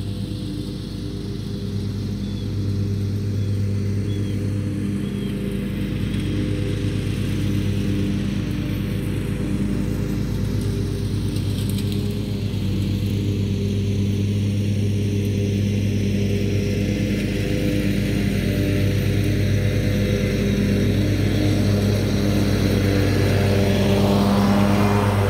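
Zero-turn riding mower running steadily at mowing speed, a constant engine hum that grows louder as the mower approaches and passes close near the end.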